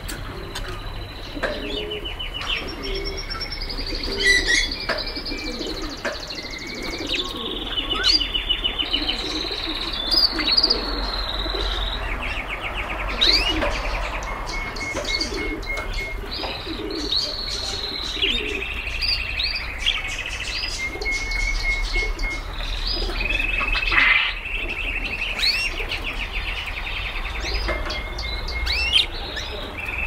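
Caged canaries singing long, high songs of fast trills and rolled runs of rapidly repeated notes. A pigeon's low cooing comes in at times underneath.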